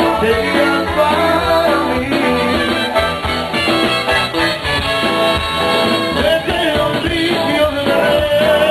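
A Tejano band playing an oldies song live, with a lead singer over the band.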